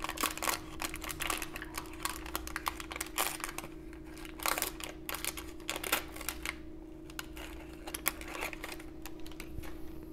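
The waxed-paper wrapper of a 1990 Donruss baseball card pack crackling and tearing as it is peeled open by hand. The crackle thins out after about six seconds.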